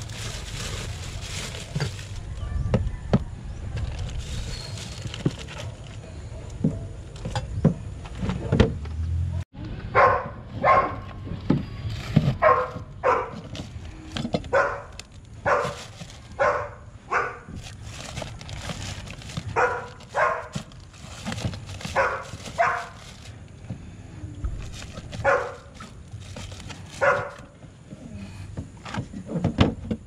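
A dog barking over and over, about one bark a second, starting after an abrupt cut about a third of the way in. Before the cut there is a low rumble of wind buffeting the microphone, with scattered clicks.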